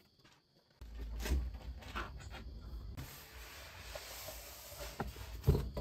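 Packaging being handled: a cardboard box and a styrofoam packing tray moved about, giving irregular rustling, scraping and small bumps after a brief near-silent start, with a sharper knock near the end.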